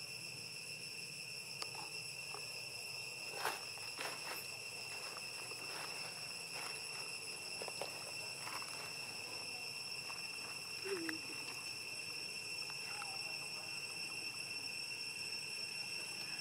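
Forest insect chorus: a steady high-pitched drone of several held tones, with a few scattered faint clicks and taps, the loudest about three and a half seconds in.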